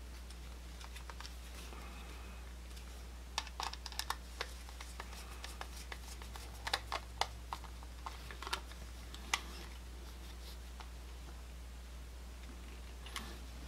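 Light, scattered clicks and scrapes of a screwdriver turning the terminal screws on a duplex receptacle and handling the plastic outlet, mostly in the middle of the stretch.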